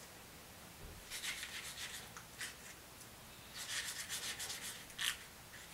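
Fingertip smearing ketchup across a sheet of paper: faint rubbing in two spells of about a second each, and a short scrape near the end.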